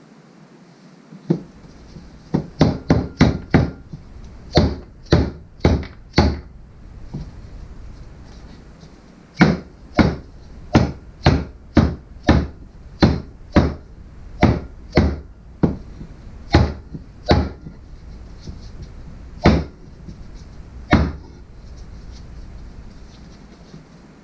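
Rubber mallet tapping a new rear main seal into place on a Ford 4.6 SOHC V8: sharp knocks in short runs, a quick flurry of about six a few seconds in, then groups of single strikes spaced about half a second apart, ending with two last blows.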